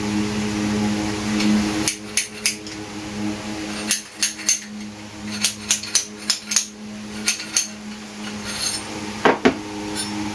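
Irregular sharp metal taps and knocks, a hammer or tool striking airgun parts to work loose a stuck component, over a steady low hum.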